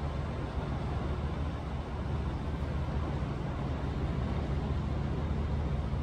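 Quiet waves on a calm sea: a steady, even wash with a deep low rumble underneath.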